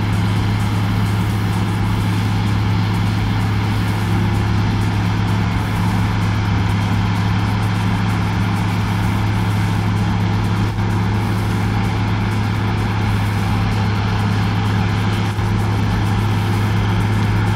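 New Holland CR-series combine harvester running steadily under load while threshing oilseed rape: an even, low engine and machine drone that does not change.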